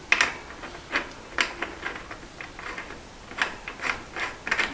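Steel crank puller being handled and threaded into the exercise bike's eccentric crank: irregular light metallic clicks and scrapes.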